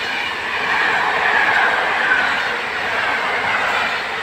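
PKP Intercity passenger coaches behind an EP09 electric locomotive rolling past at speed: steady rolling noise of steel wheels on rails, with a faint high whine sliding down in pitch about a second or two in.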